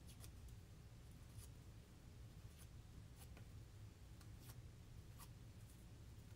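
Near silence: faint, scattered crackles of thin paper petals being bent and handled by fingers, over a low steady hum.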